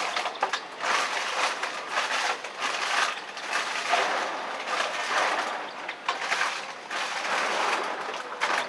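A passing train with its wheels clattering over the rails, surging in repeated pulses about once a second.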